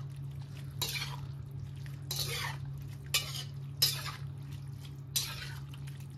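Metal spatula stirring a coconut-milk vegetable stew in a wok, scraping the metal pan in about five strokes roughly a second apart, over a steady low hum.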